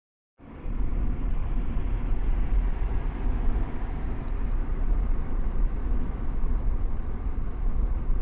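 Steady low rumble with a hiss above it from a vehicle in motion, cutting in abruptly less than half a second in.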